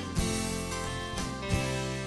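Background music of sustained chords, with new notes struck near the start and again about a second and a half in.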